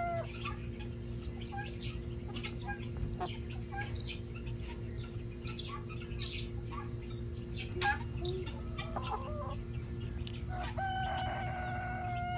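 Chickens clucking and chirping in short scattered calls, with one sharp click about eight seconds in. Near the end a rooster starts crowing, one long drawn-out call. A steady low hum runs underneath.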